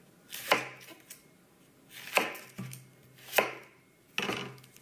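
Chef's knife cutting through a red onion and striking the cutting board: four separate cuts, about a second apart.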